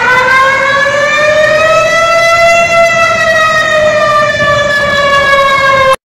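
Loud Malaysian emergency warning siren wailing: one slow rise in pitch to a peak a few seconds in, then a slow fall, cutting off suddenly near the end.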